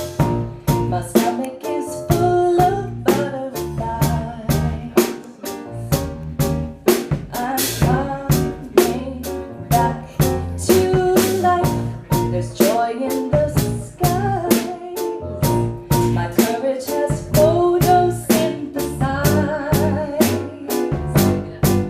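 Live song performance: instruments playing with a steady beat of sharp strokes, and a singing voice carrying the melody.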